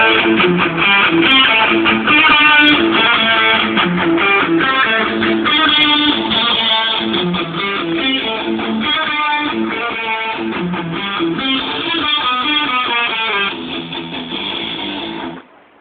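Guitar-driven music with strummed guitar over a moving bass line, which cuts off abruptly near the end.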